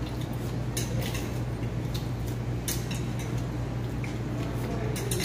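Spoons and forks clinking now and then against plates and bowls as people eat, a few scattered clicks over a steady low hum.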